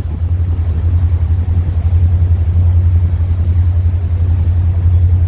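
A boat's engine droning as a steady, loud low hum.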